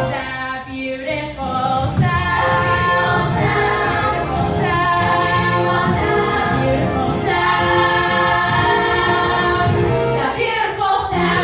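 Several voices singing together in harmony as a small choir, holding long chords that change every few seconds.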